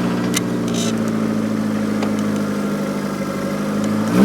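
Ford 2.3-litre turbocharged four-cylinder of a 1986 Thunderbird Turbo Coupe idling steadily just after a cold start. Near the end it begins to rev up.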